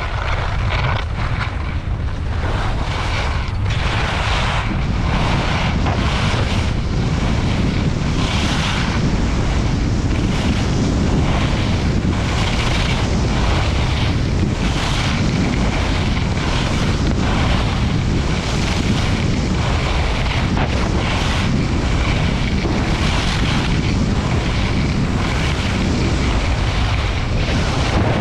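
Wind buffeting the microphone of a camera carried by a downhill skier, a steady low rumble, with the hiss and scrape of skis on groomed, packed snow coming and going about once a second as the skier turns.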